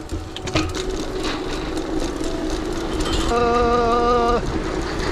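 Mountain bike tyres rolling across the steel grating deck of a suspension footbridge: a steady metallic rumble, with a clank about half a second in. A steady pitched tone is held for about a second past the middle.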